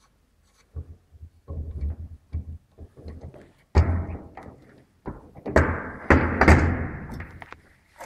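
Metal waveguide bench parts being handled and fitted together: irregular thuds and clunks, a sharp knock about four seconds in, and a denser stretch of rubbing and handling noise near the end.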